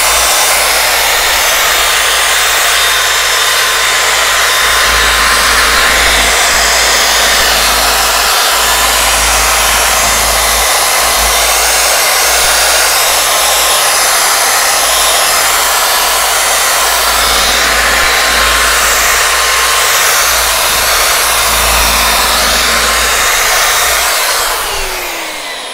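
Electric drill spinning a brass wire brush against a steel tractor flywheel to scrub rust off around its edge: a steady whir with a scraping hiss. The drill winds down near the end.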